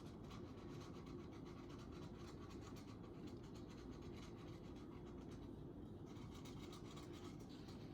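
Faint scratchy brush strokes of paint being applied to a birdhouse, many small repeated strokes over a low room hum.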